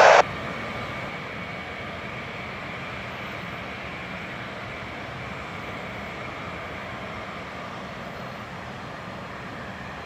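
Jet engines of an Antonov An-124-100 heard from a distance as it taxis at low power: a steady hiss with a faint, even high whine.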